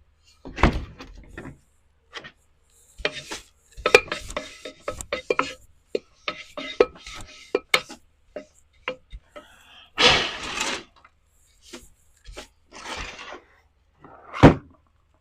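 Clinks and knocks of a ceramic bonsai pot being handled and set on a work surface, with a scraping rustle about ten seconds in and one loud knock near the end.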